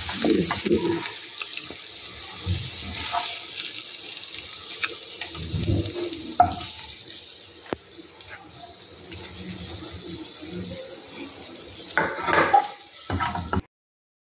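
Mutton heart pieces sizzling in hot oil in a pan while a metal spatula scrapes along the pan and lifts them out into a clay bowl, with scattered scrapes and knocks. The sound cuts off suddenly near the end.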